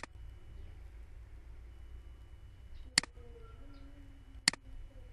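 Computer mouse clicking three times, sharp single clicks about three seconds apart and then a second and a half apart, over a steady low hum.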